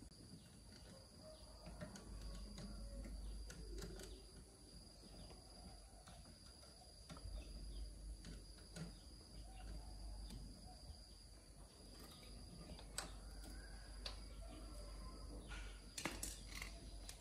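Quiet forest ambience: a steady high insect drone, with scattered light clicks and taps that come more often near the end.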